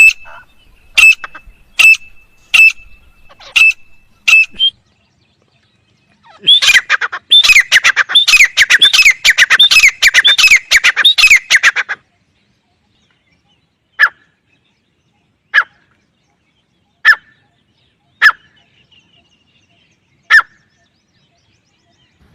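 Francolin (teetar) calling: a run of sharp calls a little under a second apart, then a burst of rapid chattering calls lasting about five seconds, then single calls every second and a half or so.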